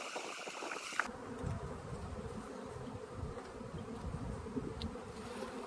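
Honeybees buzzing steadily around an open hive while its frames are worked, with a single sharp knock about a second in.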